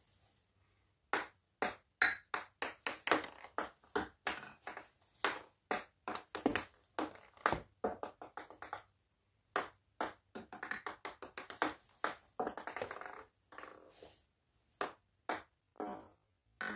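Ping pong balls bouncing on a stone countertop: many sharp, light clicks in quick runs of bounces, with a couple of short rattles as balls land and rattle in the cups of a metal muffin tin.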